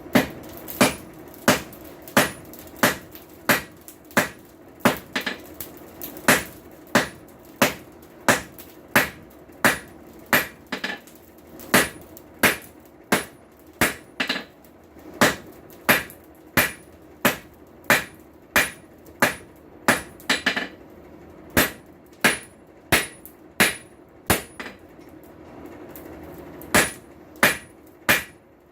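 Hand-hammer blows on hot steel at an anvil, forging a tong blank: sharp, ringing strikes at about two a second, with a short pause near the end. A steady low hum runs underneath.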